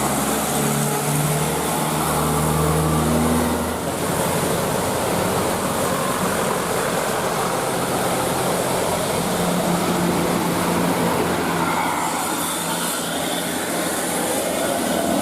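Road traffic in heavy rain: vehicle engines running under a steady hiss of rain and wet tyres. A deep engine hum stops about four seconds in.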